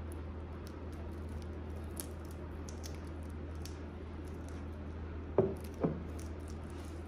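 Handling noise from nitrile-gloved hands holding and turning a ceramic latte cup: faint rustles and ticks over a steady low hum. Two knocks about half a second apart a little after five seconds in are the loudest sounds.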